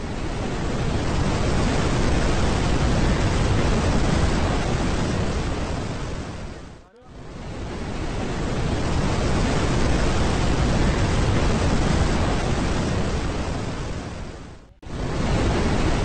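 Steady rushing noise of a waterfall, a dense even roar heaviest in the low end. It fades out briefly about seven seconds in and again near the end, then comes back.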